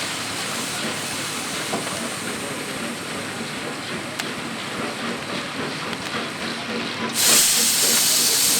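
Running sawmill machinery giving a steady hiss with faint ticks. About seven seconds in, the hiss suddenly grows much louder and brighter.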